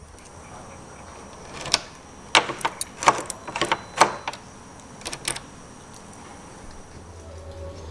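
Key going into and turning in the cylinder of a restored Union nightlatch: a quick run of sharp metal clicks and rattles, with the other keys on the ring jingling.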